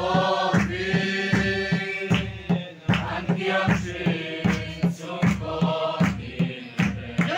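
A crowd of voices sings a hymn together in unison, over a steady beat on Mizo khuang, double-headed barrel drums.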